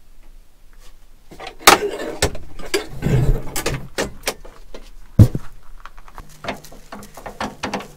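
Knocks, clicks and rattles of an old car's body parts being handled: doors, latches and loose metal trim, with two sharp knocks, one about two seconds in and the loudest about five seconds in. A low steady hum sets in near the end.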